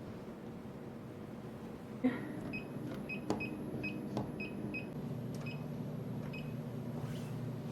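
Vending machine beeping: short high electronic beeps repeating about twice a second, with a few sharp clicks and a low steady hum underneath.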